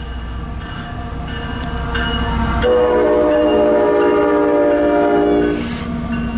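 Diesel freight locomotive of a loaded CSX coal train approaching with a low engine rumble that grows louder. About two and a half seconds in, its air horn sounds one steady chord for about three seconds, then cuts off.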